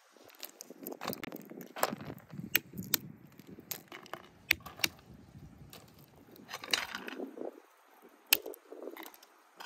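Walnut shells being cracked and picked apart by hand: crunching of shell, with several sharp cracks and clicks scattered through.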